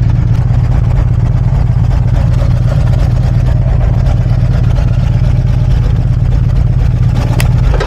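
Harley-Davidson Road Glide's V-twin engine idling steadily with a deep, even rumble.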